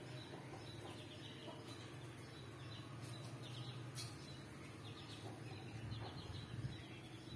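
Faint small-bird chirping: many short, quick downward chirps scattered throughout, over a low steady hum.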